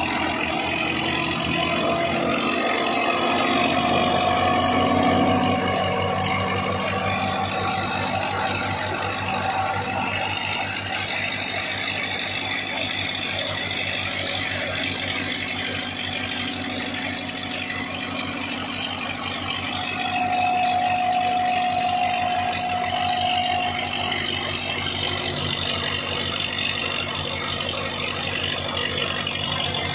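Old Belarus tractor diesel engine running at a steady speed with a fast, even knocking beat, belt-driving a flour mill. A higher whine rises over it for a few seconds twice.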